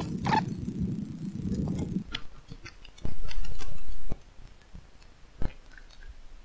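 Scattered single clicks of a computer mouse over a low hum, with a deep rumble lasting about a second around three seconds in.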